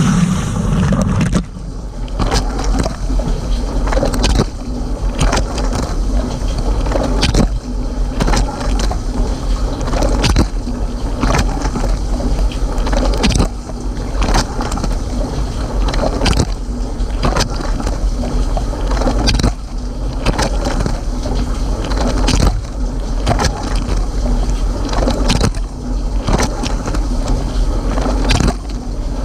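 Water spraying and splashing inside a Cylinda dishwasher's tub during its rinse cycle, as the wash pump cuts in suddenly at the start and then runs with a steady low hum. Heavier splashes come every few seconds.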